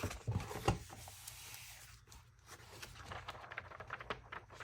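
A new hardcover planner and its packaging being handled: two soft knocks in the first second, then rustling and a run of small taps and crinkles.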